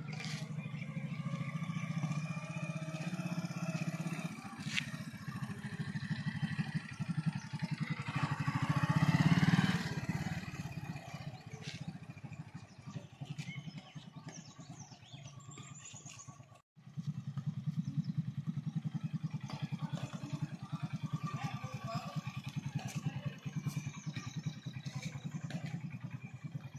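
Motorcycle engine running at low speed as a learner rides; it revs up to its loudest about nine seconds in, then settles. The sound drops out for an instant a little past halfway and resumes steadily.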